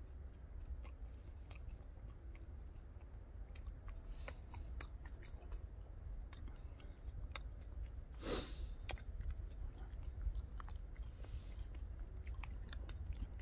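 A man chewing food, with small mouth clicks scattered throughout and a brief louder rush of noise about eight seconds in.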